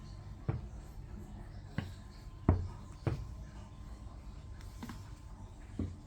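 A handful of irregular soft thumps and taps, about six, the loudest about halfway through, over a low steady hum.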